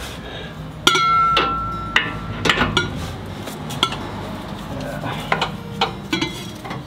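Steel drag link bar clinking and knocking against the LandCruiser's steering arms and chassis as it is lifted into place by hand. About a second in, one sharp metal strike rings for about a second, and lighter clinks follow every second or so.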